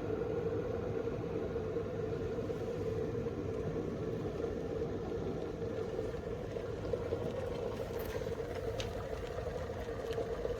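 Ulalov 1-litre stainless-steel gooseneck electric kettle at a full boil, the water rumbling steadily.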